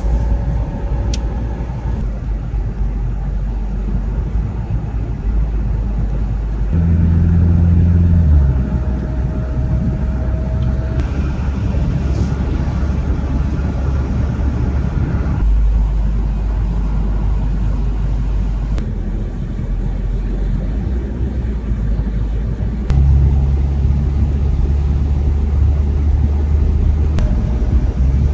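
Car cabin noise while driving on a wet road: a steady rumble of engine and tyres that changes in level abruptly several times.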